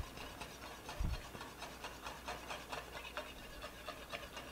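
Wire piano whisk beating through a cream sauce in a stainless steel pan: faint, quick, even scraping and tapping of the wires against the pan, with a soft low thump about a second in.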